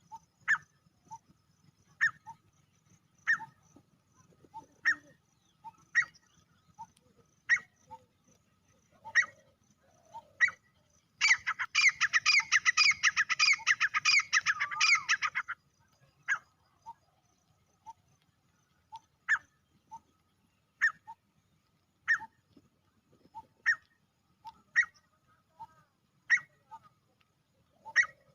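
Male grey francolin calling: short, sharp notes about every second and a half. In the middle comes a fast, loud run of repeated notes lasting about four seconds.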